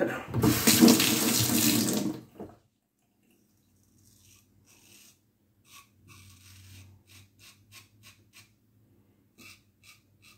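Bathroom sink tap running for about two seconds, as the razor is rinsed mid-shave. After that come only faint, short scratchy ticks.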